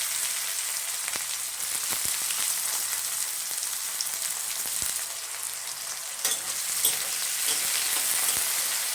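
Chopped onion sizzling in hot oil in a pan. The pan is being stirred, with sharper clicks and knocks against it in the last few seconds.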